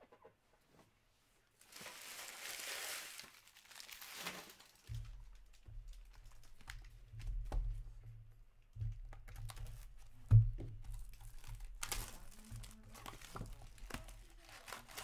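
Plastic shrink wrap on a sealed hockey card hobby box crinkling and tearing as it is slit and pulled off, with cardboard handling clicks and rumble. A single sharp knock about ten seconds in is the loudest sound.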